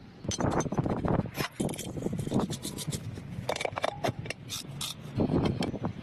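Repeated irregular scraping and rubbing strokes of a hand tool working a surface, with short pauses between bursts.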